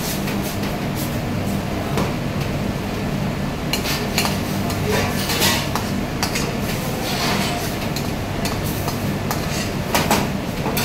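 Metal tongs and a ladle clinking and scraping against a stainless steel sauté pan as pasta is tossed and stirred, with a cluster of knocks about halfway through and again near the end. Under it is a steady low mechanical hum.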